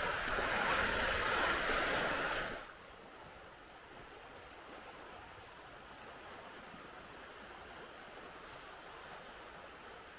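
Seashore ambience: a steady rush of sea water washing against a rocky shore, loud at first, then cut abruptly about two and a half seconds in to a much fainter steady hiss.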